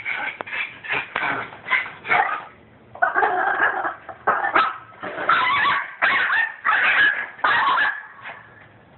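Chihuahua barking excitedly in a rapid string of high-pitched yaps, short and quick at first and then in longer bursts, agitated at a squirrel.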